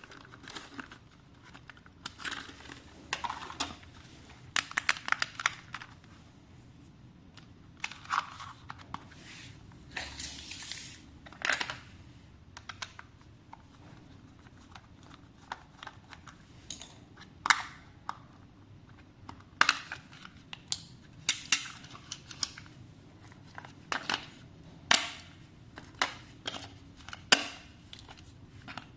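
Packaging being handled by hand: irregular crinkling, rustling and tearing, broken by sharp clicks and taps.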